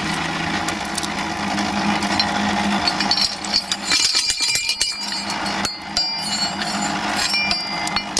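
The metal fire door of a small coal-fired boiler's firebox being swung shut and latched, with metallic clinks and clanks over a steady mechanical hum.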